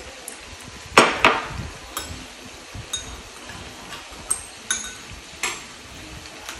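Chopsticks and tableware clinking against bowls and a frying pan during a meal: a string of separate sharp clicks with a short ring, the loudest two close together about a second in.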